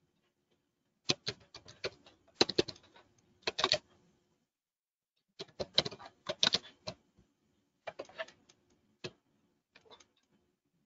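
Computer keyboard typing: short bursts of rapid keystrokes separated by pauses of a second or more.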